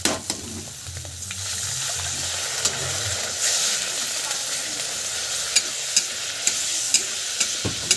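Fried spice paste sizzling in hot oil in a pan as water is stirred in for the gravy, the sizzle growing louder about a second in. A spatula scrapes and ticks against the pan now and then.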